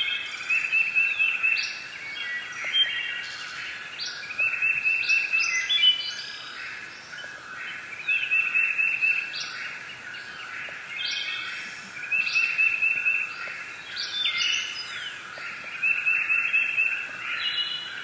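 Budgerigars chirping and warbling: a busy, continuous run of fast trills and short chirps that repeat in phrases every second or two.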